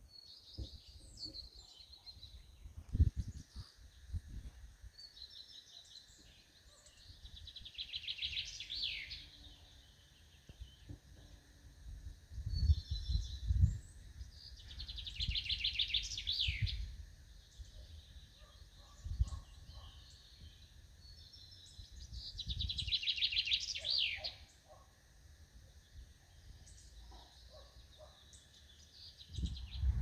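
A songbird in a pine wood singing the same short song three times, about seven seconds apart: a few high notes, then a fast trill that ends in a falling flourish. Low thumps and rumbles sit underneath, the loudest a few seconds in.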